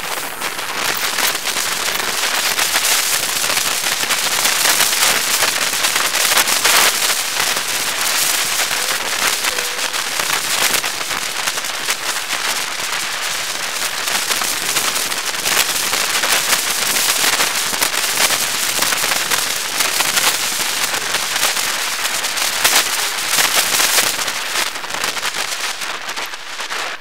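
Wind buffeting and crackling on the microphone of a camera mounted on a moving bike, a dense rushing noise that dies down over the last couple of seconds.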